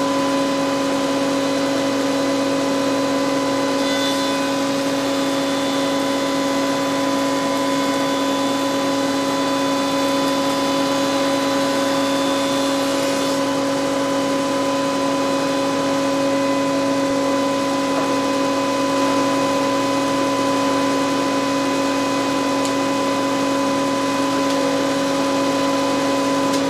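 Spindle shaper with a power feeder running steadily, a constant machine hum with a strong pitched whine. From about four seconds in to about thirteen seconds a higher whine joins it.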